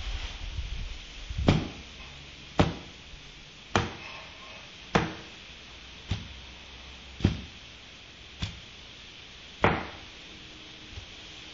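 A bristle broom head whacking a tiled floor eight times in a steady rhythm, about once every second and a bit, squashing a wolf spider and its spiderlings.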